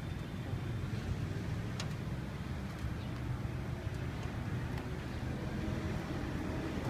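Steady low rumble of street traffic, with a single light click about two seconds in.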